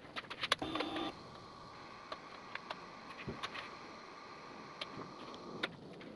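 Several faint, scattered clicks over quiet room tone, with a faint steady hum behind them: the motorcycle's switches being worked as the LED headlight is turned on and off.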